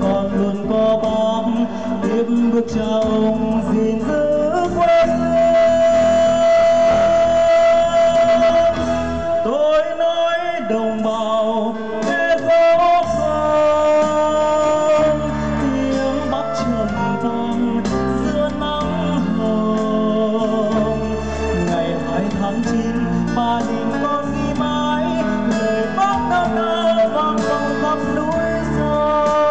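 Male vocalist singing into a microphone, backed by a live band on keyboards, electric bass and drums. The melody holds one long note from about five seconds in to nearly ten seconds.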